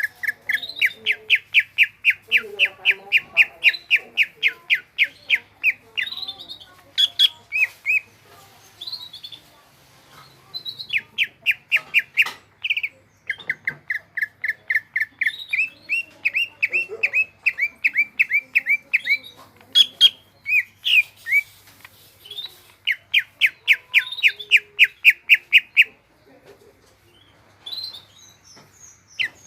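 Green leafbird (cucak ijo) singing loudly in long, rapid runs of repeated whistled notes, about seven a second, broken by short pauses and a few varied single calls.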